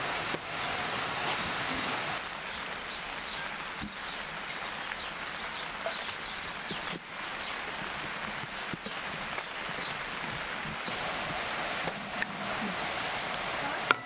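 Steady rain falling and pattering. The hiss changes abruptly about two seconds in and again near eleven seconds.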